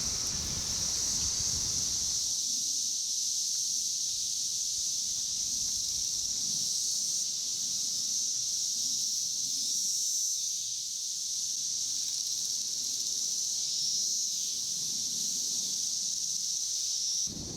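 Chorus of Brood X periodical cicadas: a steady, high-pitched drone of many insects calling at once. Wind rumbles on the microphone for about the first two seconds.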